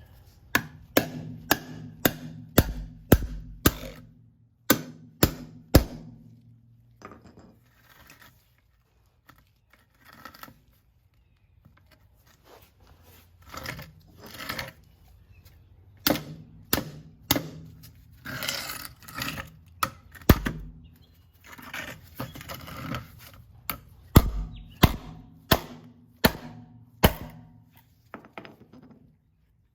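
Repeated sharp knocks on an OTF knife's aluminum handle, its blade lodged in a wooden block, as it is struck to try to snap the blade off. The knocks come in runs of about two a second, with a pause in the middle and some scraping.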